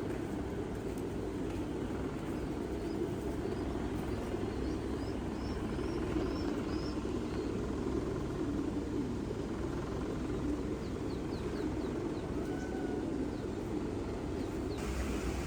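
Pigeon loft ambience: a steady low rumbling noise from the birds and surroundings, with a quick run of faint high bird chirps about five seconds in.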